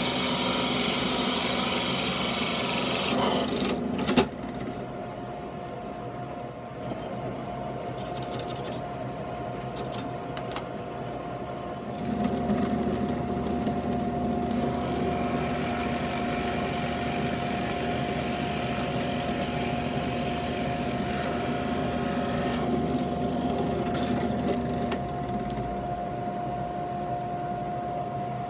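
Drill press boring holes in wood, first with a hole saw and then with a smaller bit. Loud cutting for about the first four seconds ends in a sharp click. The press then runs with a steady whine, and the cutting grows loud again from about twelve seconds in until near twenty-five seconds.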